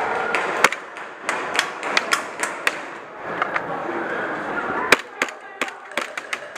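Airsoft gunfire in an indoor arena: a string of sharp, irregularly spaced cracks and clicks, in two clusters, from guns firing and BBs striking hard surfaces.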